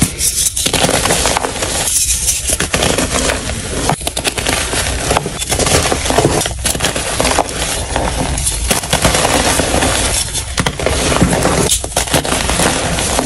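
Blocks of dyed gym chalk crunching and crumbling as hands squeeze them in a bowl of loose chalk powder, played back at double speed. A dense crackle of breaking chalk comes in repeated squeezes, with brief lulls about every one and a half to two seconds.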